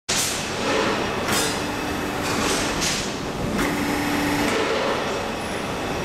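Test machine bending a rebar coupler splice in a steel jig: steady mechanical noise with repeated surges of hiss about a second apart and a low hum that comes and goes twice.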